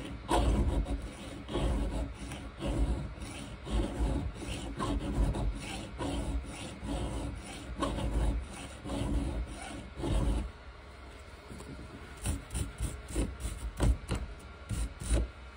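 A file rasping across the cutter teeth of a chainsaw chain clamped in a square-filing vise, in steady repeated strokes about one and a half a second. It stops about ten seconds in, followed by a few light clicks.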